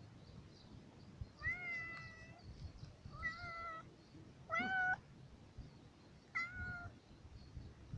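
Silver tabby cat meowing four times close to the microphone. The first call is the longest; the third is short, rises in pitch and is the loudest.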